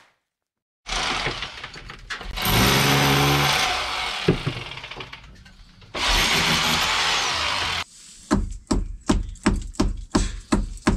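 A handheld power tool working on the roof timbers and stonework in long bursts, starting about a second in, its motor pitch clear in one burst. From about eight seconds in it gives way to a run of regular sharp knocks, about three a second.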